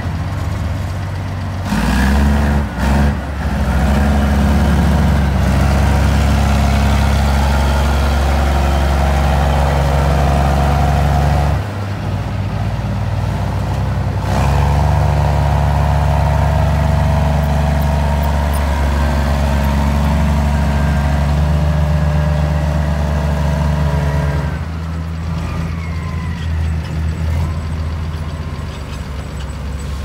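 Heavy diesel engine of earthmoving machinery working under load. It runs hard for two stretches of about ten seconds each, eases briefly between them, and drops lower near the end. There are a few knocks early in the first stretch.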